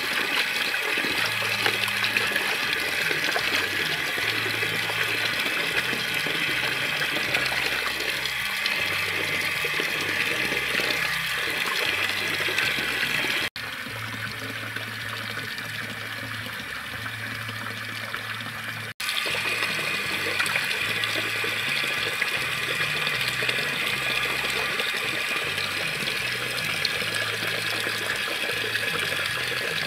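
Tap water pouring steadily into a steel basin, with sloshing as hands rub and turn plucked duck carcasses in the water. For about five seconds in the middle the sound drops to a quieter level, with abrupt cuts at each end.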